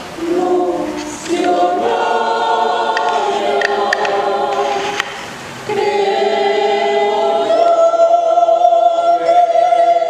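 Mixed choir of men's and women's voices singing a Christmas carol (villancico) in parts, with a short break about five seconds in and a long held chord in the last few seconds.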